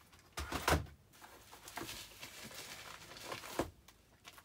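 Bubble wrap and plastic-wrapped packs crinkling and rustling as items are rummaged out of a cardboard box. There are two knocks about half a second in, then a steady rustle.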